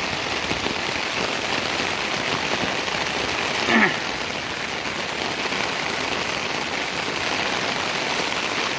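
Heavy rain pouring down steadily, an even hiss of downpour. A short cry that falls in pitch cuts through a little under four seconds in and is the loudest moment.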